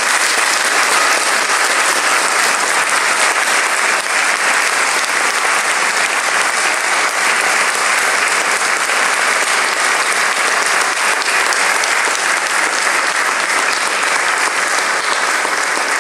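A large church congregation applauding: dense, steady clapping that keeps going without a break.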